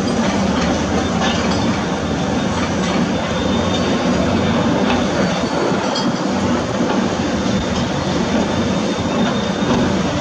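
Heavy construction machinery's diesel engine running steadily, with a few faint knocks.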